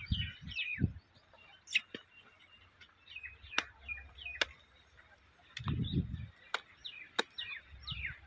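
Small birds chirping repeatedly in short, falling calls, with several sharp clicks and a couple of brief low rumbles, one at the start and one about six seconds in.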